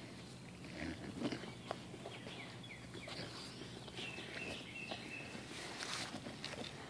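Mastiff puppies moving about in grass while hunting a mole: faint rustling and padding with scattered small clicks. A few short high chirps come in, and a thin high tone is held for about a second midway.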